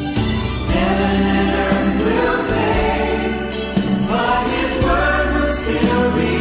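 Choir singing gospel music.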